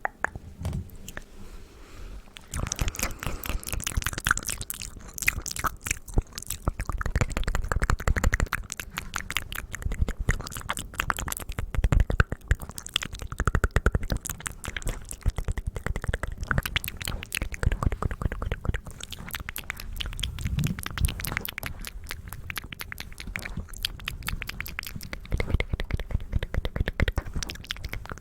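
Close-miked ASMR mouth sounds: rapid wet clicks and smacks of the lips and tongue in dense runs, softer for the first couple of seconds.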